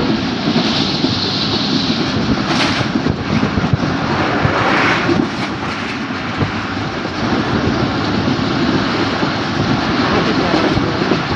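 Passenger train carriage running at speed, heard from an open doorway: a steady rumbling roar of wheels and rushing air with loose rattles.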